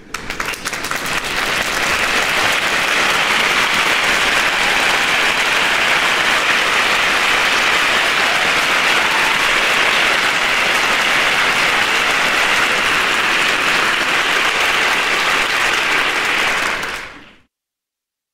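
Sliced plantains shallow-frying in hot oil in a frying pan, a steady sizzle. It swells up over the first second or two and stops shortly before the end.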